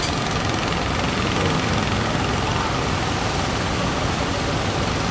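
Fishing boat engines running steadily, blended with a constant rush of noise from the surf.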